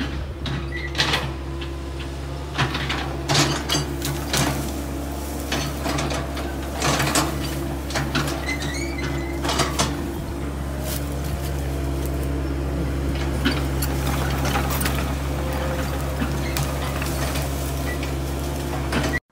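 Excavator's diesel engine running steadily, with many sharp knocks, cracks and clanks from the machine working through brush and debris while clearing land. The sound cuts off suddenly just before the end.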